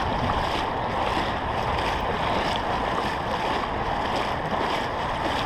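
Floodwater swishing around a person's legs as they wade through it about two feet deep: a steady, even rushing.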